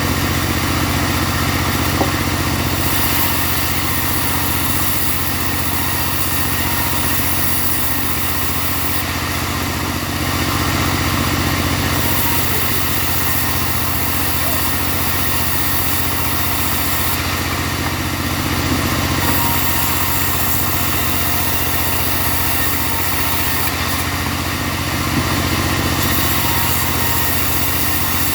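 Engine-driven portable band sawmill running steadily, its engine humming under a wide rushing noise from the blade and wood. A high hiss comes and goes every few seconds.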